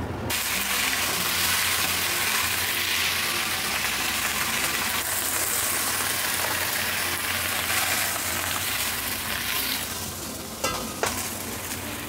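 Chinese leafy greens and garlic stir-frying in hot oil in a stainless honeycomb wok, turned with a silicone spatula. The loud sizzle starts suddenly just after the start and eases near the end, where there are two sharp clacks.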